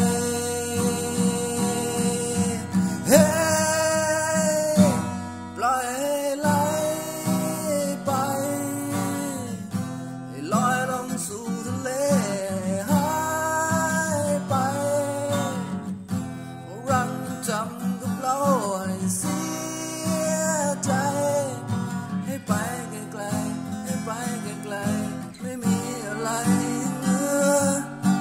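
A man singing a Thai song while strumming an acoustic guitar.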